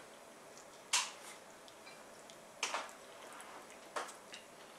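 Mouth sounds of a man eating spaghetti: three short, sharp wet smacks as noodles are slurped and chewed, about a second in, midway and near the end, the first the loudest, with fainter ticks between.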